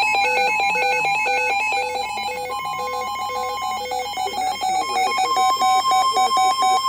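Electronic alert tones: several pure beeping tones at different pitches repeating in a rapid, regular on-off pattern, with a steady tone joining about two and a half seconds in.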